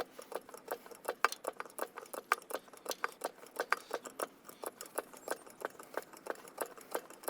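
Straight 40-weight motor oil glugging as it is poured from its container into a Detroit Diesel engine's filler, in quick, fairly even pulses of about five a second.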